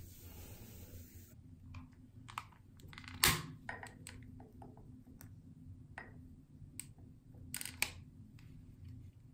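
A bath bomb fizzing with a steady hiss as it is rubbed in the bathwater, cutting off after about a second. Then a scatter of sharp clicks from a long-neck utility lighter being worked to light a jar candle, the loudest about three seconds in and a quick pair near the end.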